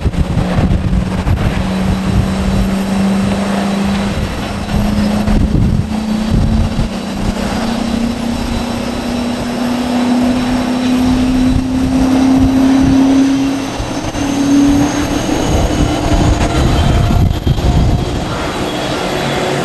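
Airbus A330-900's Rolls-Royce Trent 7000 turbofans spooling up for takeoff: a steady tone that climbs slowly in pitch over about fourteen seconds, with fainter high whines rising with it, over a low rumble.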